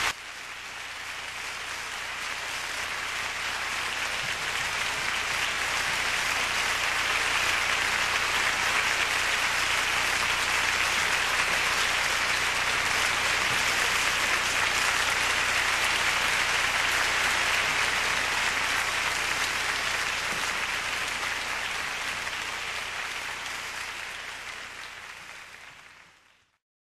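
Theatre audience applauding at a curtain call, building over the first few seconds, holding steady, then fading and cutting off near the end.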